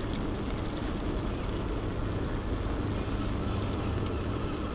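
Steady rush of wind and tyre noise from an electric bike rolling along a tarmac path, with a faint low hum underneath.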